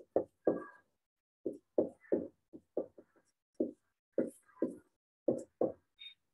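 Felt-tip marker writing on a whiteboard: a string of short, uneven knocks and taps as the tip strikes the board for each letter, bracket and plus sign, cut off sharply between strokes.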